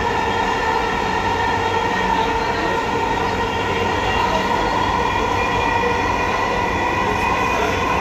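Electric metro train running on an elevated track, heard from inside the carriage: a steady running noise of motors and wheels with several steady whining tones over it.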